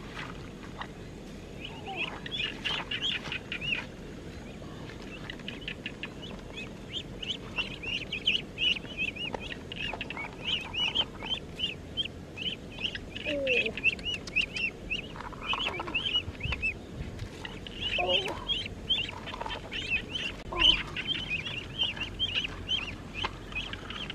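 Ducklings peeping: a continuous chorus of short, high peeps, several a second, with a few lower calls in between.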